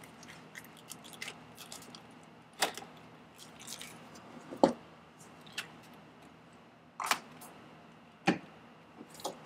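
Light clicks and knocks of hands working a fuel hose and its clamp onto a fitting of a truck's auxiliary power unit: four sharper knocks spread out, with small ticks between.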